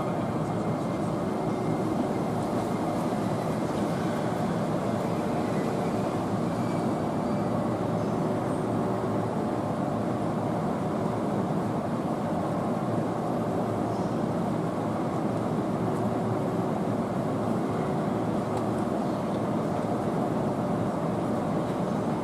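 EF81 electric locomotive standing at the platform, its onboard equipment running with a steady whir and hum that holds a few faint steady tones.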